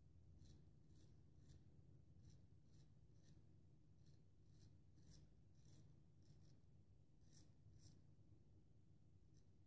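Gold Dollar 66 straight razor scraping through lathered stubble on a with-the-grain pass: faint, short scratchy strokes, about one or two a second.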